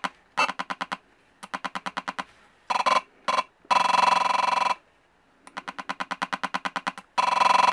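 Loudspeaker of a breadboard infrared remote-control tester sounding out a remote's infrared code as keys are pressed: a series of separate bursts, some a rapid ticking at about ten ticks a second, others a short steady buzz. Each burst is a transmitted key code, showing that the remote is sending.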